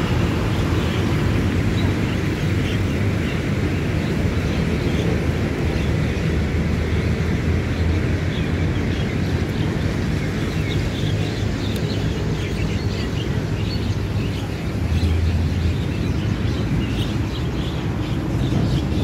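Steady low rumble of road traffic, with faint high chirps scattered through the second half.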